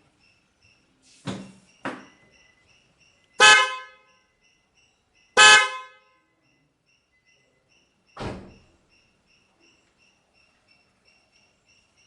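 Newly installed twin snail car horns sounding two short blasts about two seconds apart, each roughly half a second long. There are a couple of thumps before them and one after.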